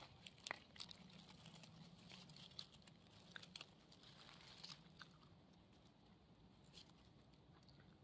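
Faint rustling and light crackling of dry grass and leaf litter as a hand pulls an orange-capped bolete out of the ground, with scattered small clicks and snaps, most of them in the first half.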